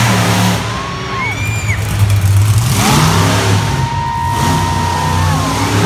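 Monster truck engine revving hard as the truck drives across a dirt arena floor, with a hard burst of throttle about three seconds in, echoing in a large indoor hall.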